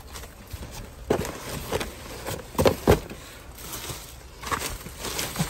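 Cardboard boxes and plastic bags being shifted and rummaged through in a dumpster: a run of separate knocks and rustles, the loudest pair in the middle.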